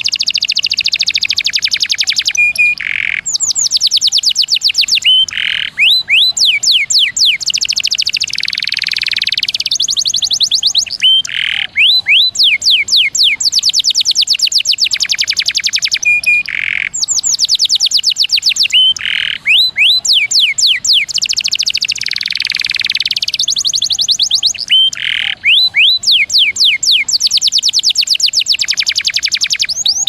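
Domestic canary singing: long rolls of rapid, repeated falling notes, broken every few seconds by short harsh bursts and a brief steady whistle, the phrases recurring.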